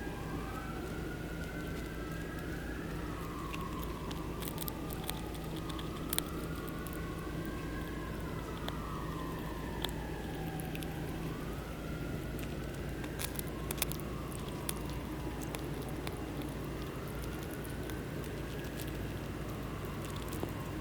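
Sirens wailing, more than one at a time, their slow rising and falling sweeps overlapping, over a steady low hum, with scattered faint ticks.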